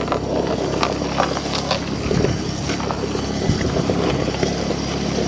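Truck engine running steadily at a low speed, with scattered clicks and light knocks over it.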